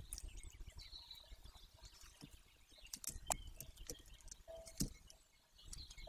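Golden eaglet tearing at bird prey on its nest: faint scattered sharp clicks and rustles over a low rumble.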